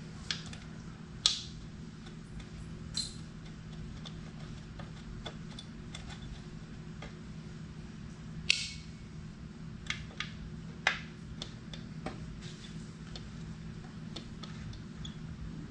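Scattered light clicks and scrapes of a screwdriver at the e-bike's down tube as the screw holding the plastic wire guard cover is undone, with a few sharper clicks, over a steady low hum.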